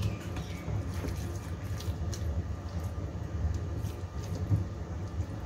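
Hand rubbing a dry spice mix into raw chicken thighs on a plate, soft wet squishing of the meat, over a steady low background rumble.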